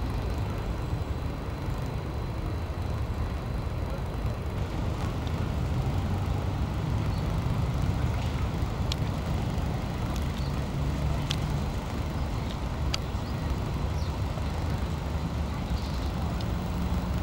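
Steady low rumble of distant road traffic, with a few faint short ticks over it.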